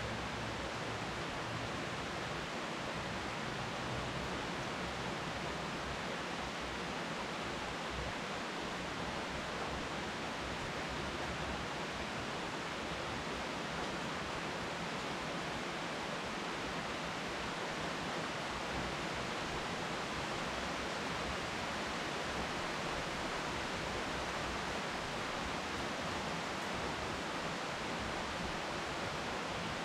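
Steady rain falling on leafy trees, an even, unbroken hiss.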